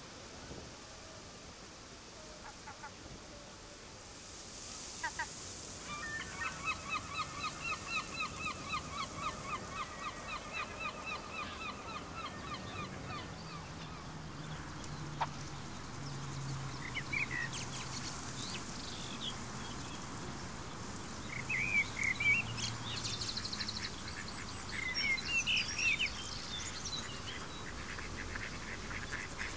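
A herring gull gives its long call, a rapid run of repeated yelping notes, about three a second, lasting several seconds. Later come scattered short, sharp, higher bird calls, the loudest sounds here.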